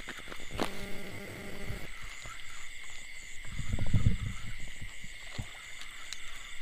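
Frogs calling in a steady night chorus, a continuous high trill with a pulsing shimmer above it. A brief low rumble about four seconds in is the loudest moment.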